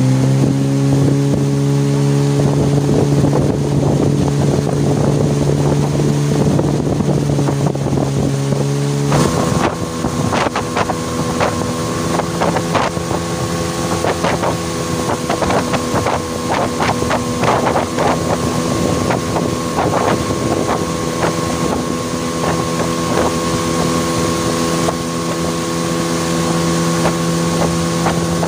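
Small outboard motor, a Tohatsu 9.8, running steadily at speed and pushing a small aluminium boat, with wind on the microphone and splashing from the hull. The engine note steps to a different pitch about nine seconds in, and crackling splashes grow more frequent from then on.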